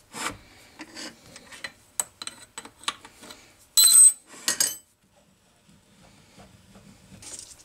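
Metal clicks, scrapes and clinks from a hand-held die in its die stock being worked onto a small brass fitting in a lathe chuck, with a loud ringing clink about four seconds in. Quieter after that.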